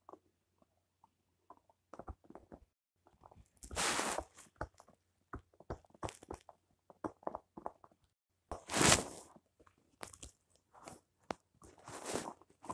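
A dog gnawing and chomping on a bone held between its paws: irregular clicks and crunches of teeth on the bone, with three longer, louder stretches of chewing about 4, 9 and 12 seconds in.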